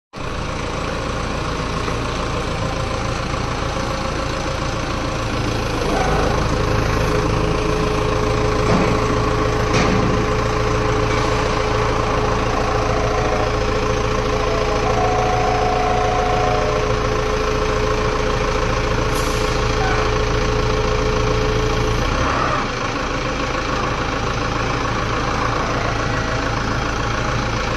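Lonking forklift's engine running steadily as it carries a heavy load, with a steady whine that comes in about six seconds in and stops at about twenty-two seconds.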